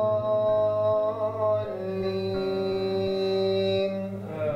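A man's voice chanting Quranic recitation in long held notes with a slight waver, stepping down in pitch about two seconds in, as when an imam leads congregational prayer.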